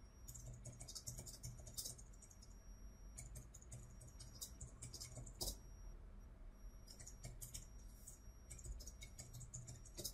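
Computer keyboard typing, faint: runs of quick key clicks broken by short pauses.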